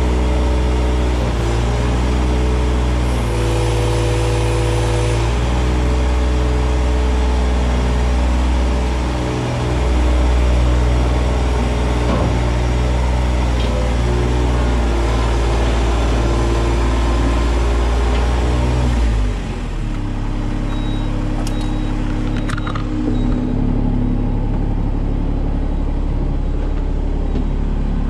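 Small skid steer's engine running, heard from the operator's seat, its speed stepping up and down several times as the machine is worked, then settling to a lower, quieter speed about two-thirds of the way through. A few light knocks follow.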